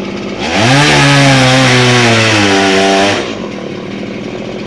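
Chainsaw idling, then revved to full throttle about half a second in and held for about two and a half seconds while cutting into scrap lumber, before dropping back to idle.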